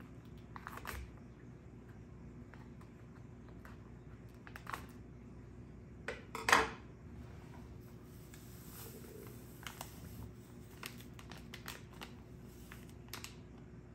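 Small clicks and crinkles of scissors cutting open a plastic packet of crystal compound, with a sharp knock about six and a half seconds in as the scissors are set down on the wooden table.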